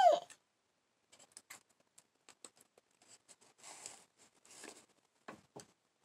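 Faint, scattered small clicks and rustles of plastic makeup items being handled: lip gloss tubes and caps picked up and set down. At the very start the end of a brief voice sound that rises and falls in pitch is heard.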